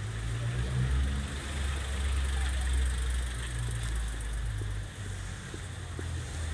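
Street background: a steady low rumble with faint voices of people nearby.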